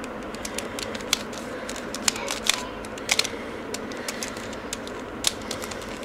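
Mirror cube's plastic layers clicking as they are turned quickly through a move sequence, with irregular clicks several times a second.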